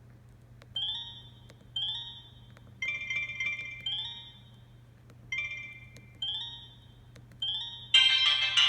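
Sanyo Katana ringtone, a MIDI-converted tune, playing from a Kyocera Cadence phone's speaker. It goes as a string of short melody notes that start sharply and die away, about one a second, then a louder, fuller chord near the end.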